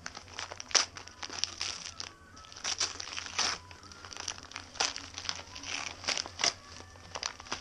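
Gift wrapping paper crinkling and tearing in irregular bursts as a present is unwrapped.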